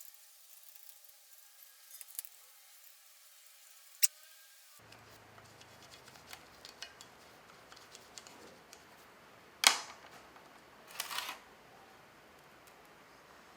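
Scattered small clicks and clinks of tools or metal parts being handled, with one sharp knock about two-thirds of the way through and a short scraping rattle just after.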